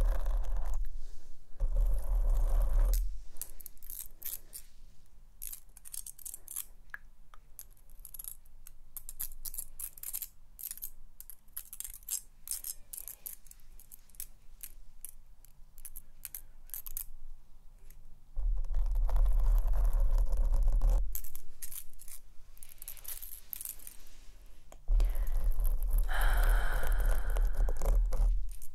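Long pointed silver claw rings clicking and tinkling against each other in quick, irregular taps. In between, the claws scratch over foam-covered microphones in loud, rumbling stretches: briefly near the start, again about two-thirds of the way in, and once more near the end.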